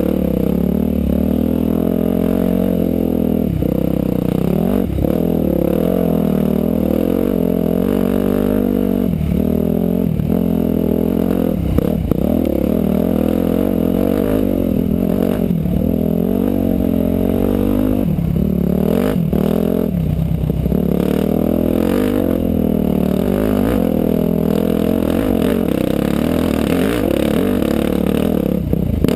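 Motorcycle engine running while riding, its revs rising and falling continually, with a few sharp knocks along the way.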